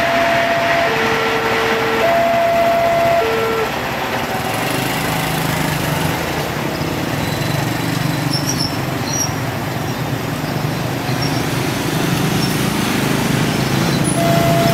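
Level-crossing warning alarm sounding its two alternating tones, cutting off about four seconds in. Then motorcycle and car engines run as traffic crosses the tracks, and near the end the two-tone alarm starts again.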